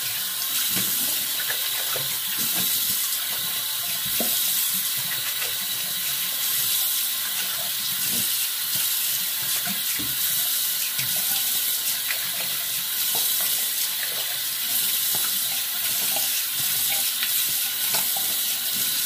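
Cold water running steadily from a tap into a sink, with small irregular splashes as lather is rinsed off after a shave.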